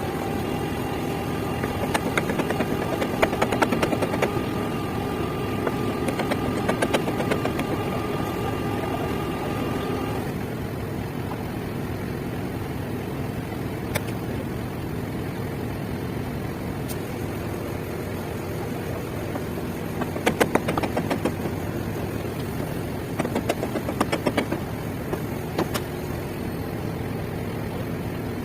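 An engine running steadily, with a higher whine over it that cuts off about ten seconds in. Several short bouts of rapid knocking or clattering come and go.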